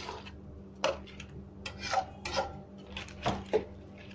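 A spatula stirring and scraping thick rice and seafood in a metal wok, in short irregular strokes against the pan.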